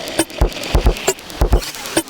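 Electronic drum loop playing: deep kick thumps, snappy mid-pitched hits and quick hi-hat-like ticks in a repeating pattern, all sampled and chopped from one piece of audio in a software sampler.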